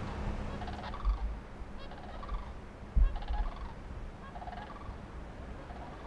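Short rattling animal calls, coming in quick pairs about once a second, over steady background noise. Two low bumps about one and three seconds in.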